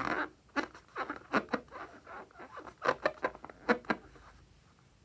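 Filled rubber balloon being squeezed and rubbed by hand, giving an irregular run of short squeaks and taps of skin and nails on rubber that dies away about four seconds in.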